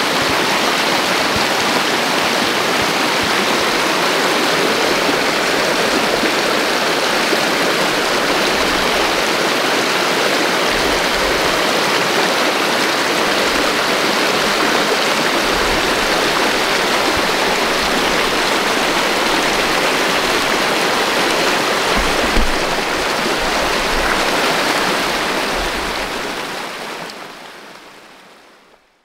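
Rain-swollen creek running fast over rocks: a steady, loud rush of water that fades out over the last few seconds.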